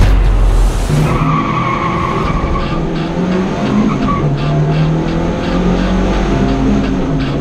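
Lada rallycross car's engine running hard under load, heard from inside the stripped cabin, with tyres squealing briefly about a second in. A loud rush of noise fills the first second.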